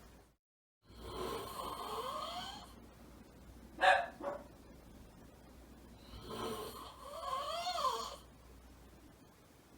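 A man's heavy snoring, two long snores about a second in and about six seconds in, with a dog grumbling along in rising and falling whines. The dog gives one short, sharp bark about four seconds in.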